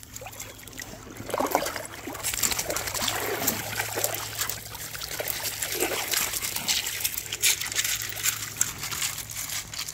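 Dogs splashing as they wade through shallow creek water, a busy run of splashes and sloshes. Near the end, their paws crunch on loose creek gravel.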